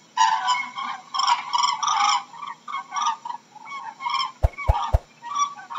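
Cranes calling: a quick run of short, pitched calls, some overlapping, that keeps going with brief gaps. Three sharp clicks follow in quick succession about three-quarters of the way through.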